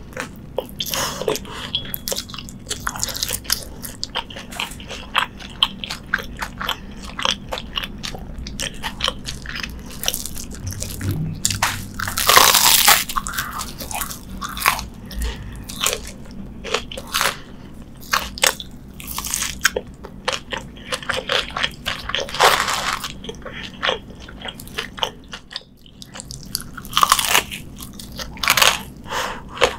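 Close-miked crunching and chewing of deep-fried Korean corn dogs, one coated in fried potato cubes: a run of crisp bites and chews, loudest about twelve seconds in.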